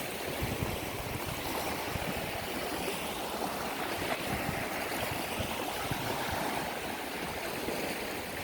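Sea waves washing steadily onto the shore, with low irregular rumbling from wind on the microphone.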